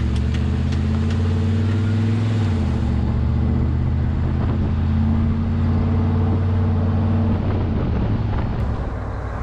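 1995 Chevy Tahoe driving on the road: steady engine and exhaust drone with tyre noise. The engine note steps down once about two and a half seconds in, and it eases off near the end.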